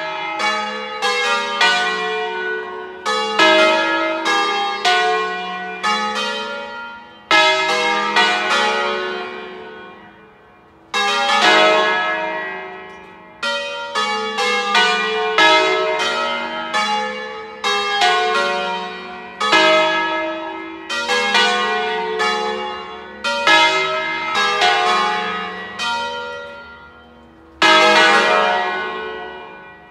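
Peal of five church bells in E3 flat (Mi3 calante) being rung in full swing on bell wheels: the largest bell was recast by Angelo Bianchi in 1956, the others were cast by Felice Bizzozero in 1818. The bells strike in quick overlapping runs that ring on and fade, with fresh rounds of strokes coming in several times.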